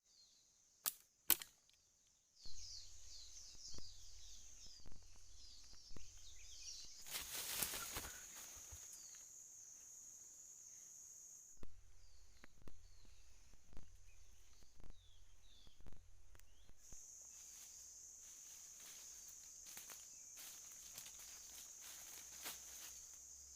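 Outdoor ambience: insects giving a steady high buzz that stops for a few seconds mid-way and comes back, with short chirps, scattered taps and rustles, and a louder rustle about seven seconds in.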